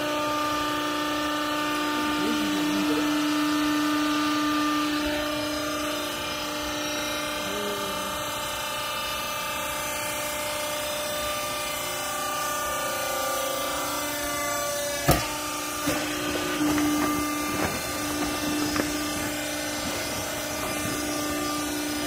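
Vertical hydraulic clothes baler's motor-driven pump running with a steady hum as the press head rises. There is one sharp clunk about fifteen seconds in, followed by a few lighter knocks.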